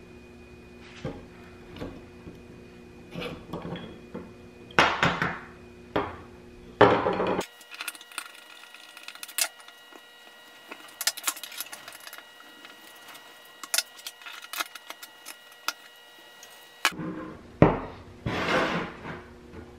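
Scattered clicks, taps and knocks of metal and wood as a cast-iron Stanley Bailey No. 4 hand plane is reassembled: the wooden handle and knob set on and their brass screws driven with a screwdriver.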